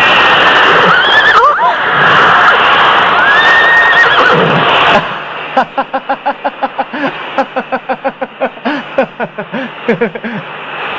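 Horse whinnying loudly, with gliding calls over a dense noisy stretch for the first five seconds. Then comes a run of short pitched pulses, about three a second.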